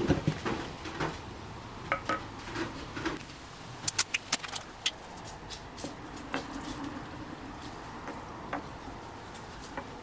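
Glass jar's screw lid unscrewed with a few clicks and taps, then sharp clinks and clicks of a small glass bottle being uncapped, followed by a quieter stretch as liquid is poured from the small bottle into the glass jar.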